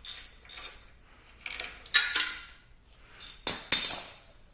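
Metal tools and small hardware jingling and clinking as they are handled: a couple of light rattles at first, then two louder clattering jingles, one about two seconds in and one near the end.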